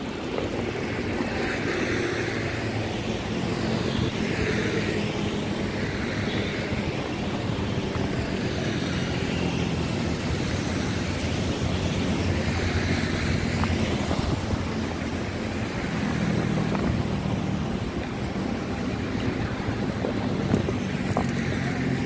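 Oxelo MF500 inline skate wheels rolling over concrete sidewalk paving, a continuous steady rumble.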